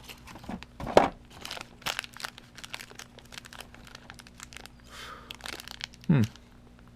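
Packaging crinkling and rustling in quick, irregular crackles as the shotgun's small accessories are unwrapped and handled. A brief vocal sound comes about a second in and another near the end.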